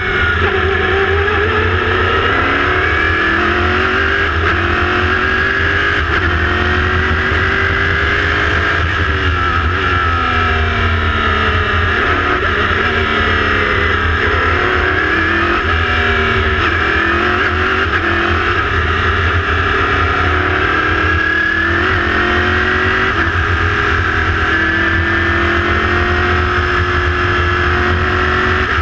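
The Chevrolet V8 of an LMPC prototype race car heard from the open cockpit while lapping at speed. The revs climb and drop again and again as the car accelerates through the gears and backs off for corners.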